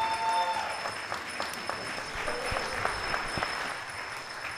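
Audience applauding, with a short held tone at the very start.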